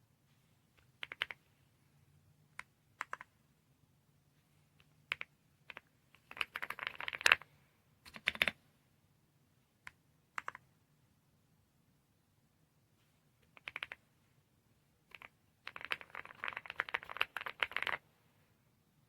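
Keys being typed on an AULA F108 Pro full-size mechanical keyboard. Scattered single presses and short pairs come between two quick runs of typing, one about six to seven seconds in and one near the end; the first run is the loudest.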